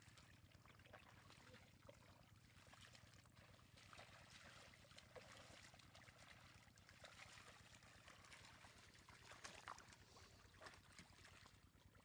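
Faint trickling and sloshing of shallow water, with scattered small clicks.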